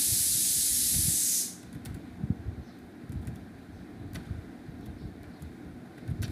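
A loud steady hiss of unknown source cuts off abruptly about a second and a half in. Faint, irregular computer-keyboard clicks follow as numbers are typed.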